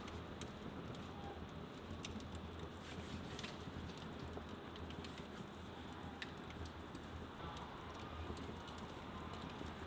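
Wood log fire burning, crackling with scattered sharp pops and snaps over a steady low rumble.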